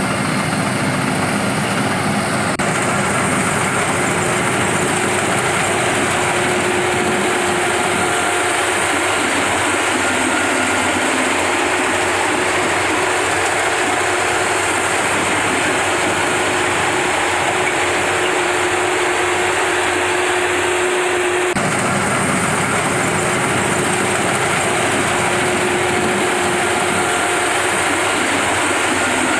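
Rice harvesting machine running steadily, a loud, even machine noise. Its sound changes abruptly about three seconds in and again about twenty-two seconds in.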